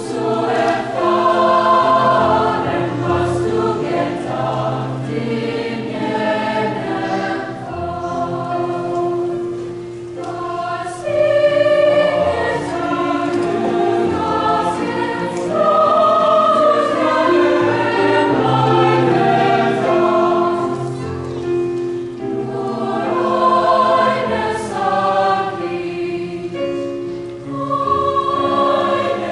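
Mixed choir of women's and men's voices singing a German art song in long, sustained phrases that swell and ease off, dipping briefly about ten and again about twenty-two seconds in.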